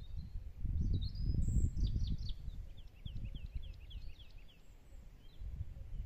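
Wind buffeting the microphone in a low, gusty rumble that is strongest in the first two or three seconds. Over it, a small bird calls in short high chirps, including a quick run of notes about two to four seconds in.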